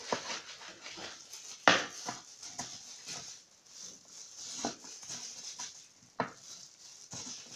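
Knife cutting pumpkin strips on a plastic cutting board, with the plastic food glove rustling as the hand gathers the pieces. Irregular knocks and taps, the sharpest just under two seconds in and another about six seconds in.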